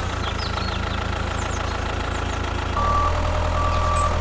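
Tractor engine running steadily at low revs, getting a little louder about three seconds in. Two short beeps sound near the end.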